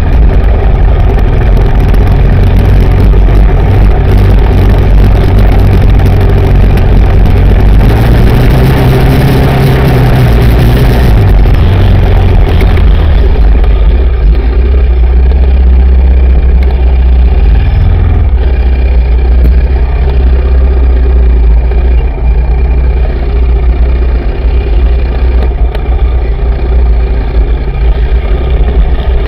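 Yamaha Raptor 700R SE quad's single-cylinder four-stroke engine running under throttle on a dirt track, very loud and close to an onboard action camera's microphone. Revs rise and fall about a third of the way in, then settle into lower, steadier running for the second half.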